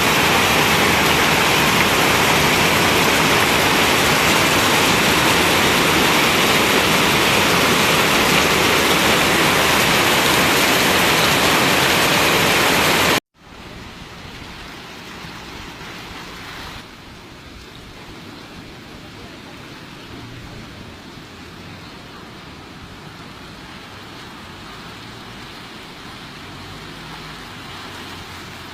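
Torrential rain and running floodwater: a loud, even hiss that cuts off sharply about thirteen seconds in and gives way to a much quieter steady hiss of rain.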